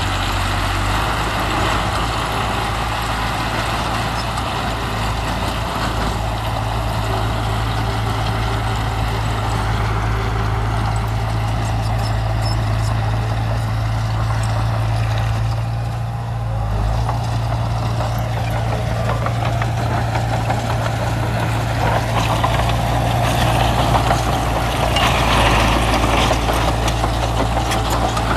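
Heavy diesel engine of earthmoving machinery running steadily, with a brief dip about halfway and growing louder near the end.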